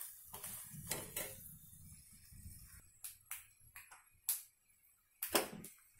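Metal slotted spoon stirring fried peanuts and curry leaves in an aluminium kadai: scattered scrapes and taps of spoon against the pan, strongest in the second half.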